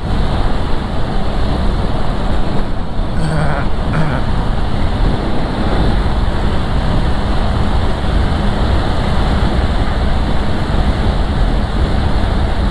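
Honda CB650R motorcycle cruising at motorway speed: a steady rush of wind over the rider's camera microphone with road noise and the engine's drone underneath.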